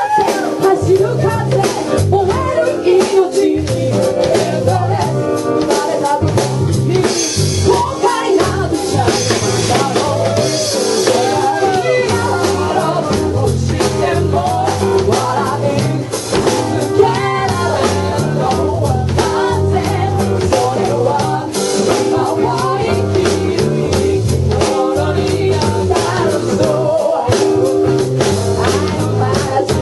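Live band music: drum kit, guitar and bass with a sung vocal line, at a steady loud level.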